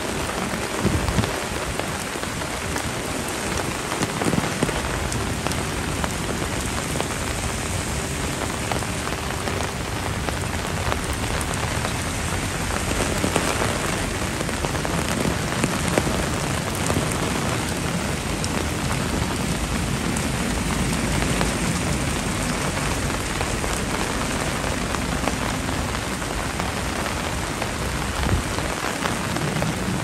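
Heavy typhoon rain falling and splashing on surfaces as a steady, even hiss.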